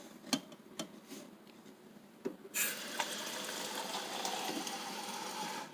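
A few light knocks of handling, then a water tap turned on about two and a half seconds in, running steadily into a container to fill it and stopping at the end.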